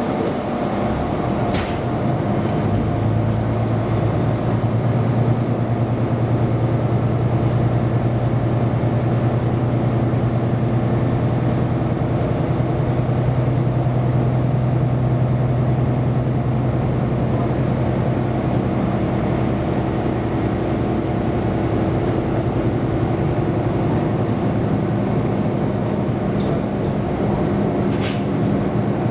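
Diesel railcar running along the track: a steady low engine drone over the rumble of the wheels. About two-thirds of the way through, the engine note shifts to a different pitch.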